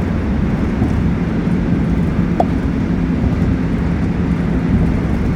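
Old-model Suin-Bundang line subway car running between stations, heard from inside the car: a steady rumble of wheels and running gear with a low hum, and one short squeak about two and a half seconds in.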